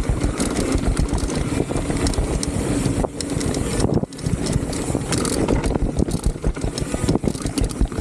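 A Salsa Cassidy full-suspension mountain bike rattling and clattering over a rough trail at speed, with wind buffeting the microphone. Its knocks and chatter come thick and irregular, easing for a moment about three and four seconds in.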